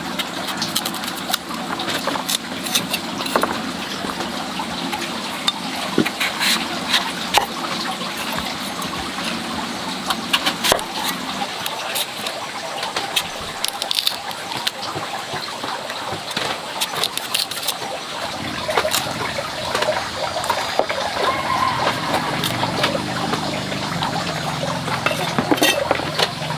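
Large kitchen knife cutting through firm green fruit, with repeated sharp clicks of the blade on a wooden chopping board, over a steady background rush.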